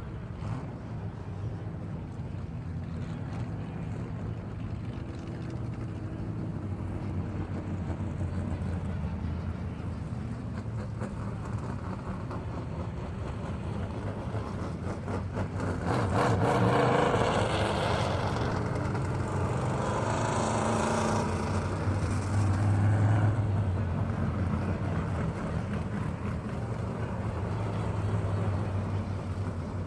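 Race sound effect: vehicle engines running steadily, louder and fuller for several seconds a little past the middle.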